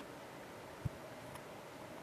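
Hobby side cutters snipping a small plastic part off a sprue: one short, soft click about a second in.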